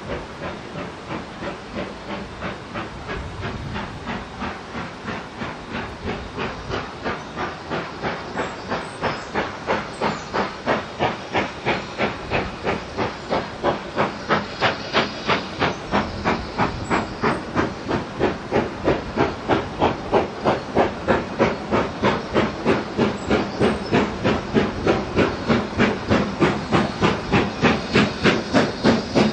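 BR Standard Class 4MT 2-6-4T steam tank locomotive working hard with a train, its chimney exhaust beating steadily at about two to three beats a second. The beats quicken slightly and grow louder as it approaches.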